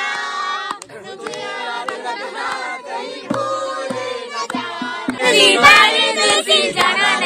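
A group of people, women and children among them, singing a song together casually and off-key. The singing gets louder and fuller about five seconds in.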